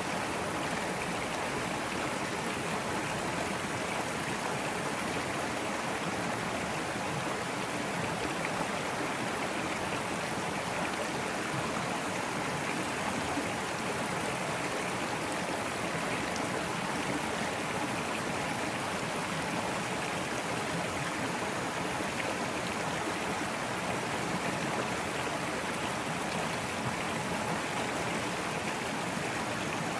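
A small brook flowing over rocks: a steady, even rush of running water.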